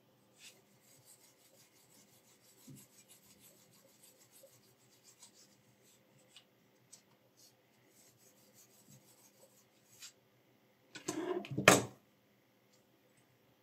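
Metal guide rod of a knife sharpener sliding and rubbing in the bushing of its carriage block, with faint scrapes and small clicks. Near the end comes one much louder scrape about a second long, ending in a sharp knock.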